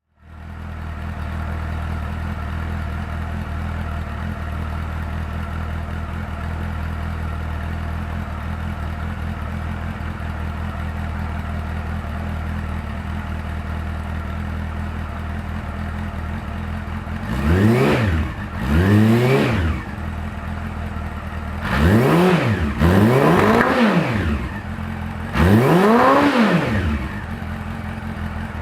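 Honda CB400 Super Four VTEC (NC39) inline-four breathing through an aftermarket COLOR'S STRIKER carbon slip-on silencer. It idles steadily for a long stretch, then is blipped five times, the revs shooting up and falling straight back each time, two of the blips back to back.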